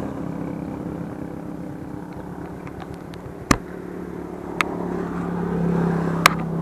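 A motorcycle engine running steadily at low revs, growing louder about five seconds in. Three sharp clicks are heard over it.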